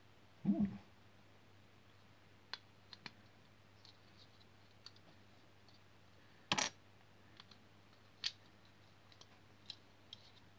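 Plastic Wilko Blox building bricks clicking and tapping as they are handled and pressed together, scattered single clicks with the sharpest about six and a half seconds in. A short low sound comes about half a second in.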